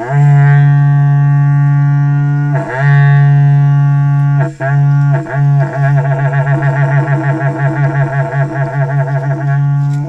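Berrante, the Brazilian cattle-horn trumpet, blown in long, low, loud held notes with short breaks about two and a half and four and a half seconds in. From about six seconds in the note pulses rapidly, about four times a second, until it stops near the end.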